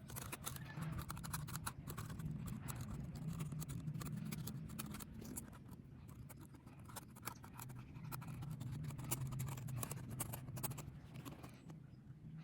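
Toothpick scraping and picking dirt out of a laptop's crevices: a long run of small, irregular scratches and clicks.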